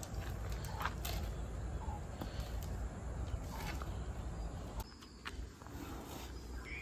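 Outdoor ambience: faint bird chirps over a low steady rumble, with a few scattered short snaps.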